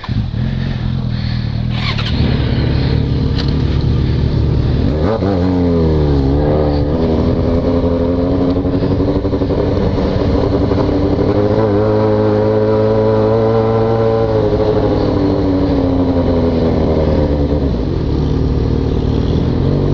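Yamaha XJ6 inline-four motorcycle engine with an open aftermarket exhaust, running under the rider at low speed. About five seconds in the revs drop sharply and climb back, then hold fairly steady with a gentle rise and fall in the second half.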